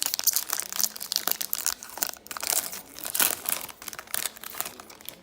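Hockey card pack wrapper being torn open and crinkled in the hands, a dense run of crackling that stops near the end.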